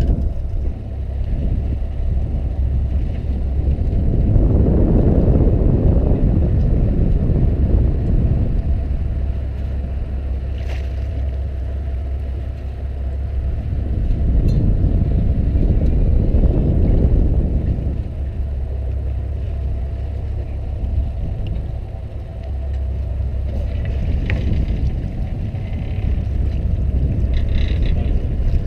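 Fishing boat's engine idling with a steady low rumble, with wind noise on the microphone swelling twice.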